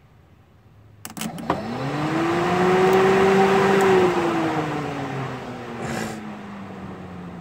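Large 19-inch electric radiator cooling fan wired straight to a battery: a few crackling clicks as the leads make contact, then the motor spins up with a rising whine and a rush of air. It runs steadily for about two seconds, then winds down with a slowly falling whine as the power is taken off.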